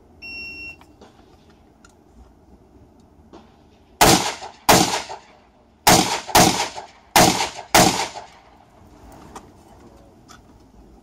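Shot timer's start beep, a steady half-second tone, then rifle shots starting about four seconds later: six shots in three quick pairs.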